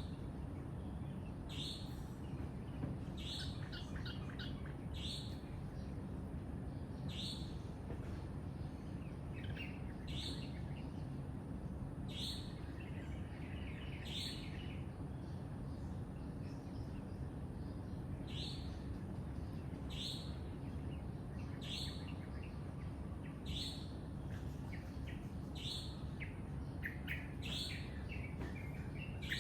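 Birds calling outdoors with short, sharp high notes repeated every second or two, a few in quick clusters, over a steady low background rumble.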